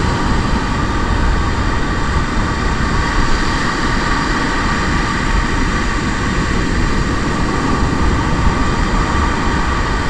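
Steady, loud roar of surf and wind buffeting the microphone on an open beach, with a faint steady hum underneath.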